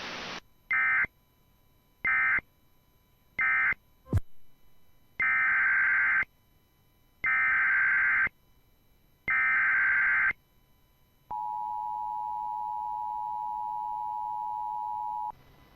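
Emergency Alert System (SAME) data tones after a brief moment of radio hiss: three short warbling end-of-message bursts, a click, then three header bursts of about a second each. A steady two-note attention tone follows for about four seconds, signalling that a new alert is starting.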